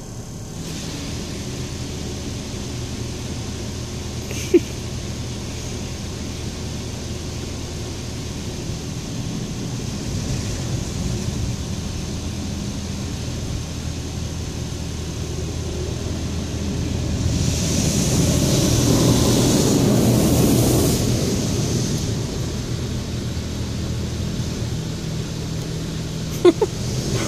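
Automatic car wash heard from inside the car: a steady low mechanical hum under the hiss of water on the body and glass. A louder rush swells for a few seconds about two-thirds of the way through. Two brief sharp sounds stand out, one early and one near the end.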